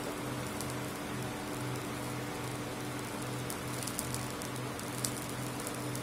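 Induction cooktop heating oil in an iron kadai: a steady hiss, with a low hum pulsing on and off about twice a second and a few faint high ticks.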